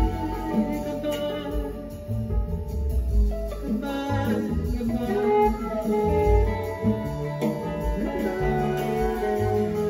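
Music: an instrumental passage of a guitar-led song, with held notes over the guitar and bass.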